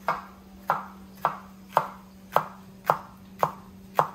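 Chef's knife slicing a green bell pepper into thin strips on a wooden cutting board: eight evenly spaced knocks of the blade striking the board, about two a second.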